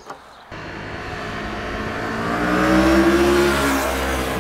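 Moto Morini 6½'s 649cc parallel-twin engine, starting suddenly about half a second in and running with its pitch rising gradually, then easing back down near the end. A small click comes right at the start.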